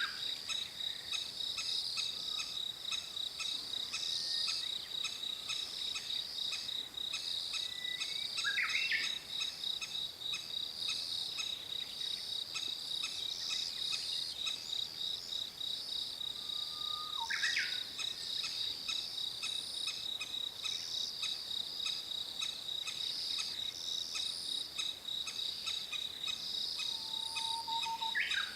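Crested kingfisher calling with food in its bill to lure its nestlings to the nest-burrow entrance: four short, sharp calls about nine seconds apart, each a brief note ending in a quick sweep. A steady, high, pulsing insect chorus runs underneath.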